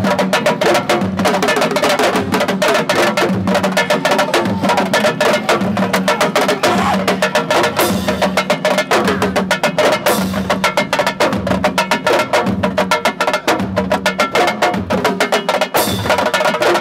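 Ensemble of Senegalese sabar drums played with sticks and bare hands in a fast, dense rhythm of overlapping sharp strokes.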